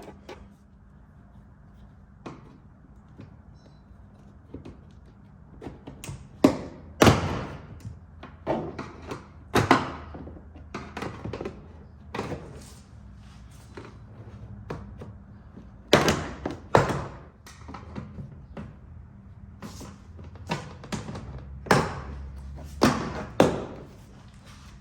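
Irregular knocks, clacks and thunks of hand work on a pickup truck's door and its plastic trim, with clusters of louder knocks about a third of the way in, around two-thirds, and near the end, over a low steady hum.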